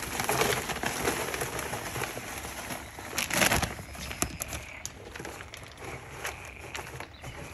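Plastic bag crinkling as loose bark-and-soil reptile substrate (Zilla Jungle Mix) is shaken out of it and pours onto the bottom of a plastic bin, loudest in a rush about three seconds in; near the end the substrate is raked and spread across the bin floor by hand.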